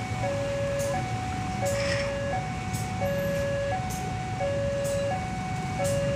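Railway level-crossing warning alarm sounding a steady two-tone electronic 'ding-dong', high and low tones alternating about every two-thirds of a second: the crossing is closed for the shunting train. Beneath it, a diesel locomotive's engine rumbles low as it creeps along.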